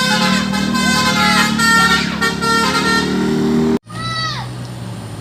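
Telolet basuri bus horn playing a melody of several overlapping tones that slide in pitch, over a low engine hum. It cuts off suddenly about four seconds in, then a shorter blast follows whose notes sag and fall away.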